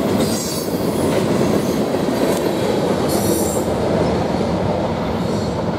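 Freight train of covered hopper cars rolling past, steel wheels rumbling on the rails with brief high wheel squeals, easing off near the end as the train pulls away.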